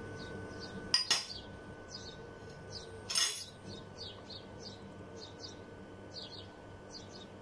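Sugar being stirred into milk in a stainless steel pot: two sharp clinks about a second in as dishware knocks against the pot, and a short scraping clatter around three seconds in as the spoon goes in. After that the spoon stirs more quietly.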